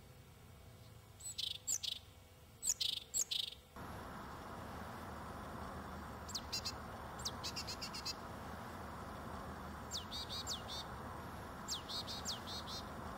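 Small songbirds calling: clusters of short, high chirps, then from about four seconds in a steady background rush starts under thin, high, downward-sliding calls given in quick runs of three to five.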